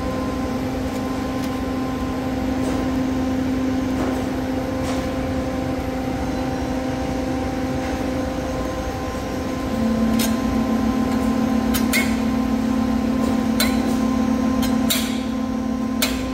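An electric machine running with a steady low hum. About ten seconds in the hum gets louder and a second, slightly lower tone joins it, and a few sharp clicks come in the later seconds.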